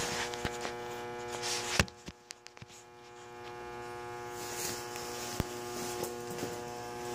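Steady electrical buzz, like mains hum, with a few sharp knocks, the loudest about two seconds in.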